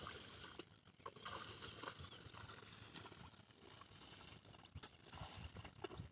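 Near silence outdoors, with faint scattered rustles and light ticks.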